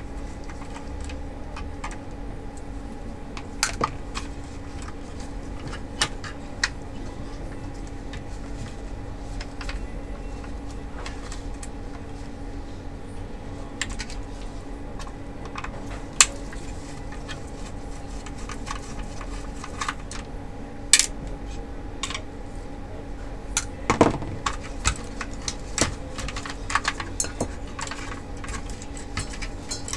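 Irregular small clicks, taps and clatter of plastic and metal parts being handled and pulled apart inside an opened LCD projector, with a few louder knocks about halfway and two-thirds through, over a steady low hum.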